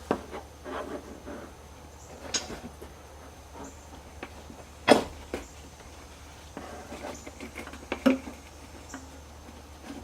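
Hands working on a camera's wiring and fittings: scattered small clicks, scratches and rustles, with a sharper knock about five seconds in and another around eight seconds, over a low steady hum.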